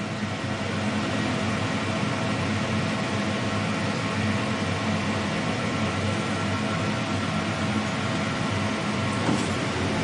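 Emco Turn 220 CNC lathe running with a steady mechanical hum and whir, growing louder in the first second and then holding level. A short click comes near the end.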